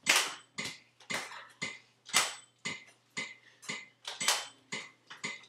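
A quick, irregular series of sharp clattering hits, roughly two a second, each dying away fast.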